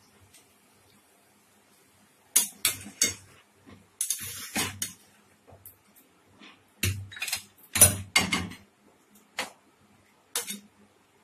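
Metal cooking utensils clinking, knocking and scraping against a pan in a run of irregular strokes, starting about two seconds in.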